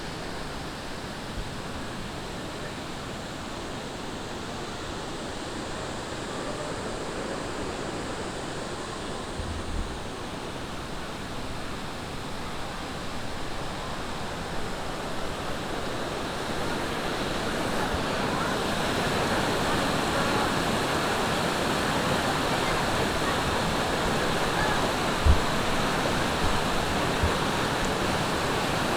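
Rushing water of a mountain valley stream, a steady even noise that grows louder about 17 seconds in. A couple of brief low thumps sound over it, the sharpest about 25 seconds in.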